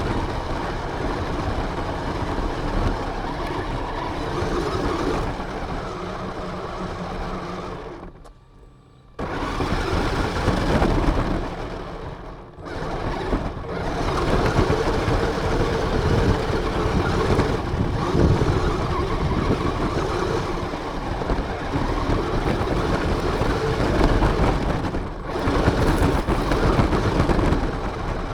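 RC car driving, heard from a camera mounted on it: a steady rush of motor, tyre and wind noise, cut off sharply for about a second near the middle and briefly twice more.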